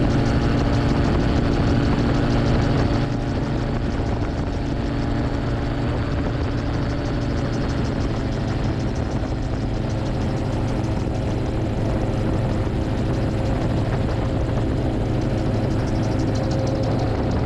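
Titanium gyroplane in cruise flight: the engine and pusher propeller drone steadily over rushing wind in the open cockpit. The drone drops a little in loudness about three seconds in.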